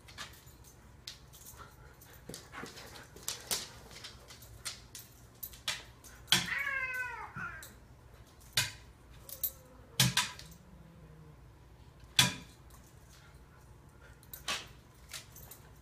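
A domestic cat meows once near the middle, a single drawn-out call of about a second that bends in pitch. Around it come several sharp taps and knocks.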